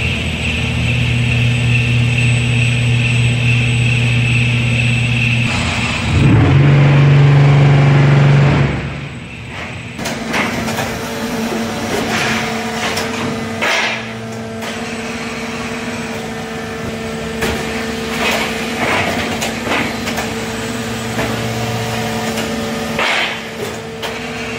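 Concrete block production line machinery running with a steady electric and hydraulic hum. It grows louder for about two seconds around six seconds in. From about ten seconds on, a series of metal knocks and clanks sounds over the hum as pallets of blocks move along the line.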